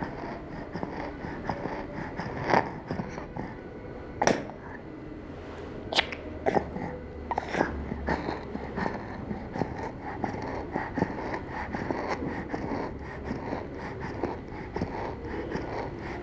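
A young child's noisy breathing with a wheeze on breathing out, the sign of a lower-airway wheeze and not stridor, which is a harsh sound on breathing in. A few sudden sharp noises break in, the strongest about 4 seconds in and again about 6 seconds in.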